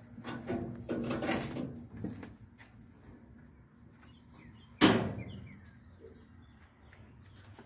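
Knocks and shuffling on a caboose's rear platform, with one sharp knock about five seconds in, the loudest sound; birds chirp faintly.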